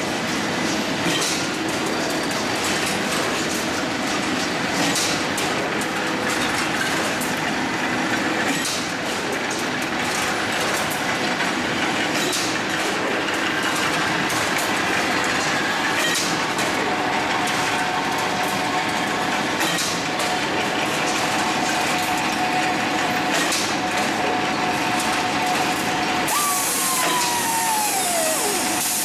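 Steady din of a cold-rolled ribbed steel bar production line running, with irregular clanks of steel bars on the collecting and bundling table. Near the end a whining tone falls in pitch.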